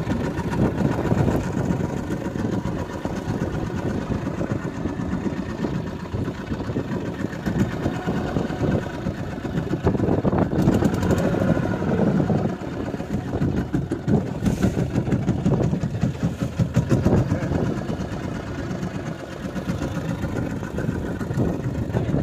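Fishing boat's engine running steadily at low speed, an even rapid chugging throughout.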